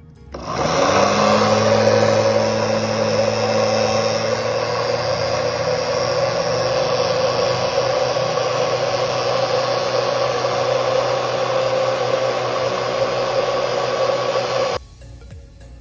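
Osterizer blender motor switched on, spinning up over about a second, then running steadily as it whips eggs and oil into a thick mayonnaise emulsion. It cuts off suddenly near the end.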